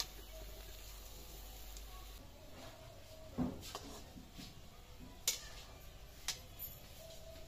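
A slotted metal ladle clinking and scraping a few times against an iron kadai, over a faint hiss of palm-fruit fritters frying in oil; the sharpest clinks fall about midway and a little later.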